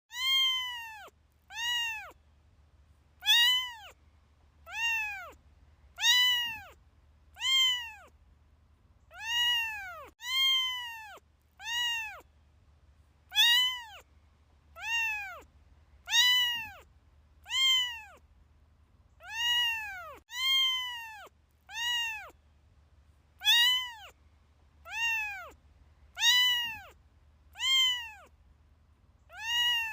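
Kitten meowing over and over, about twenty high-pitched meows a second or so apart. Each meow rises and then falls in pitch.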